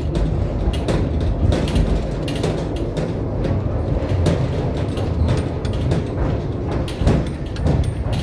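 Tram running, heard from inside the car: a steady low rumble with frequent clicks and rattles of the body and fittings.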